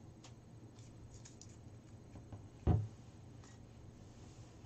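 Faint rustling and light clicks of a paper slip being folded by hand, with one dull thump about two and a half seconds in.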